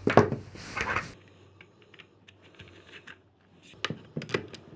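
Handling noise from a Vixen air rifle with its magazine holder fitted: a sharp knock and a short scrape in the first second, faint ticks, then a quick cluster of clicks near the end.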